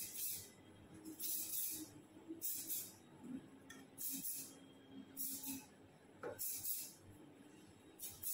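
Hair spray misting onto hair in short hisses, about six separate sprays roughly a second and a half apart.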